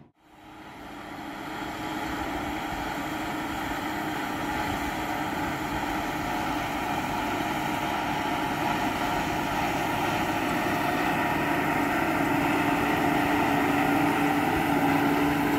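Case IH Quadtrac 540 tracked tractor's engine running under steady load while pulling a six-furrow plough through the soil: a steady drone that fades in and grows gradually louder as the tractor approaches.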